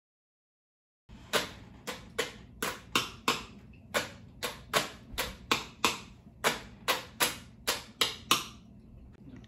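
A chopstick tapping on a plastic water bottle: about two dozen quick, sharp taps at roughly three a second, starting about a second in and stopping shortly before the end.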